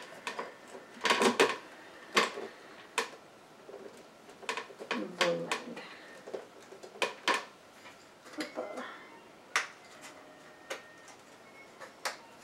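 Scattered clinks and knocks of kitchen utensils against a countertop blender's jar and lid as soup is put in and the lid fitted.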